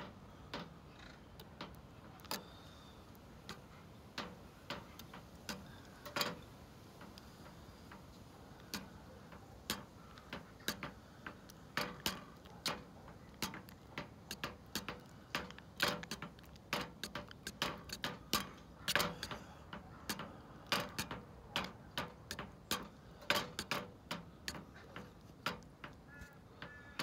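A paint stirrer clicking and knocking against the inside of a metal paint can as separated John Deere Yellow paint, oil on top and settled pigment below, is stirred back together. The clicks come about once a second at first, then roughly twice a second from about halfway, stopping just before the end.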